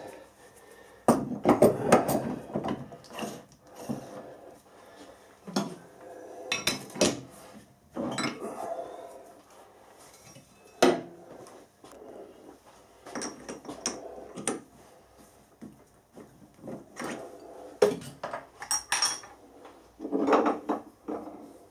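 Heavy steel lathe chucks clanking and scraping as one is lifted off the lathe spindle nose and a small four-jaw chuck is fitted and tightened on, with irregular metal knocks and clunks.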